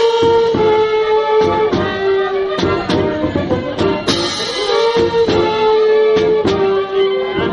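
Military band playing: held brass notes with drum beats and cymbal clashes cutting through.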